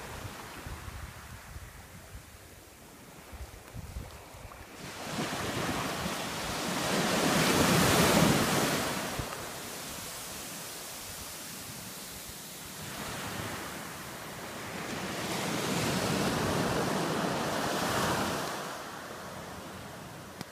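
Small waves breaking and washing up the shore in two long surges, one building from about five seconds in and one from about thirteen seconds in, each swelling over a few seconds and then dying away. Wind buffets the microphone during the first few seconds.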